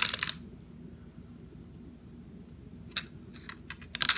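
Small beads clicking and clattering as they are pulled off a cut bracelet and handled: a clatter at the start, a few separate clicks about three seconds in, and another clatter at the end.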